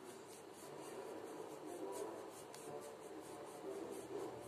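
Faint rubbing and rustling of wool yarn being wound tightly around the fingers.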